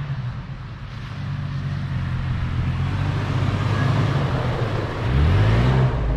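Toyota FJ Cruiser's 4.0-litre V6 running as the truck drives a dirt forest road, with tyre and road noise building. About five seconds in the engine revs up and grows louder.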